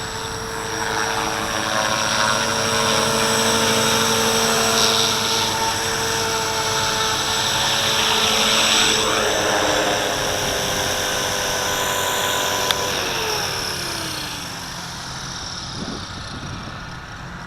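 Walkera V450D01 450-size collective-pitch RC helicopter hovering, its electric motor and rotor whining steadily, the pitch wavering. About thirteen seconds in, the motor is cut and the whine slides down as the rotor spools down for the landing.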